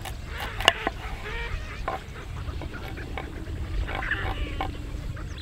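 Birds calling in short, pitch-bending notes, over a steady low rumble of wind. A sharp click comes just under a second in, the loudest sound here, with a few fainter clicks later.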